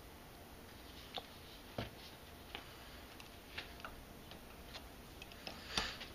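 A few scattered light clicks and taps of small steel parts being handled, as a pipe-thread tap is set into a drilled port in a cast-iron Saginaw power steering gearbox; the loudest knock comes near the end as the tap seats.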